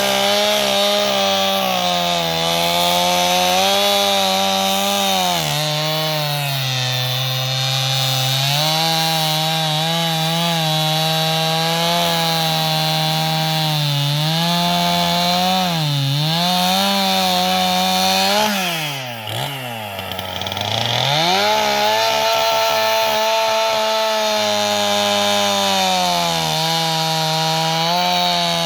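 Gas chainsaw cutting through a felled tree trunk, its engine pitch sagging and recovering again and again as the chain bites into the wood. About two-thirds of the way through the engine drops low and quieter for a second or two, then revs back up and keeps cutting.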